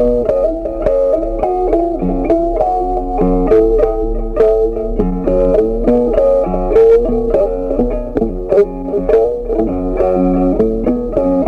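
Background music: plucked guitar playing a steady, note-by-note melody over bass.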